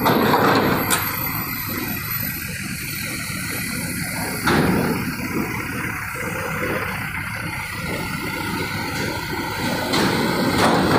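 Lorry engines running as trucks drive off a ferry's ramp onto a steel-grating linkspan, with a sharp knock about four and a half seconds in.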